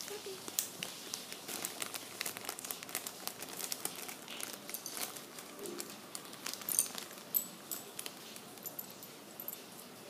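Clear plastic bag crinkling as fingers handle it, with quick, irregular crackles throughout and a few louder ones about seven seconds in.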